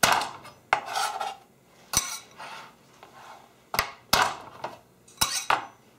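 Peeled garlic cloves being smashed under the flat of a kitchen knife on a cutting board: a series of sharp, irregularly spaced knocks as the hand strikes the blade, with short scraping sounds between them as the crushed garlic is moved about.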